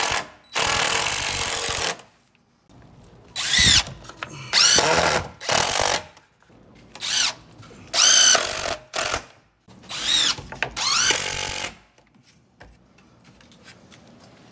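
DeWalt cordless impact driver driving screws through plywood backing strips into a wood stud. It runs in a series of short bursts, the motor whine rising as each starts and falling as it stops.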